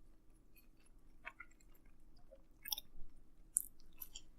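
A person chewing a mouthful of pizza, heard as a few faint, scattered mouth clicks and smacks.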